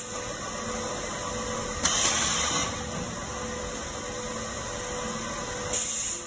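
Gasket-strip cutting machine running its automatic cutting cycle: a steady motor and belt-feeder hum, broken twice by a short loud hiss about four seconds apart as the cutter works through a cut.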